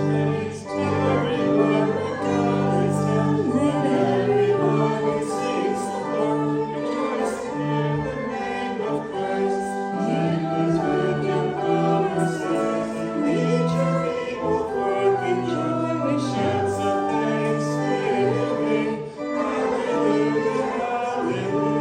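A hymn sung by a group of voices with pipe-organ-style accompaniment, held chords under a moving melody.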